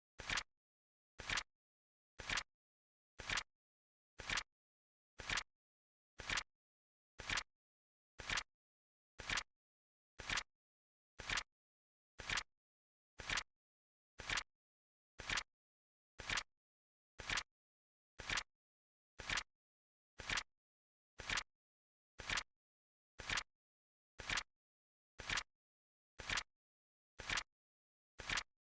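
Flip clock flip sound effect: a short, crisp click once a second, evenly spaced, as each digit card flips over.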